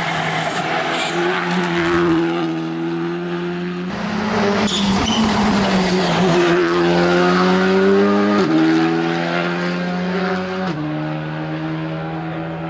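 Rally car engine pulling hard, its pitch climbing and then dropping sharply at each upshift, twice in the second half. There is a burst of harsher noise about four seconds in, and some tyre noise on the gravel.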